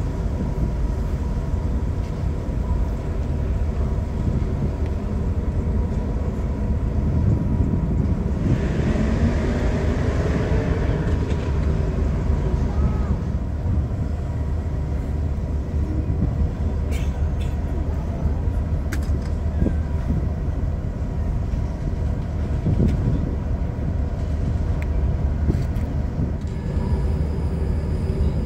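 Steady low rumble and hum of a large ro-ro ferry's engines running at the quay, with a few faint steady tones over it. About eight seconds in a louder rushing swell with a rising tone lasts a few seconds, and a few sharp clicks follow later.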